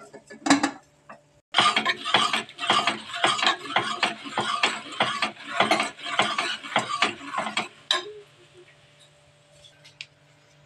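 Aluminium pressure cooker's lid lifted off with a brief clatter, then a ladle stirring and scraping the cooked dal and drumstick leaves in the pot: rapid clinking strokes for about six seconds that stop near the end.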